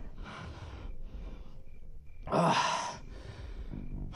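A man breathing heavily: a soft exhale, then a loud sighing gasp about two and a half seconds in, and a faint low hum near the end.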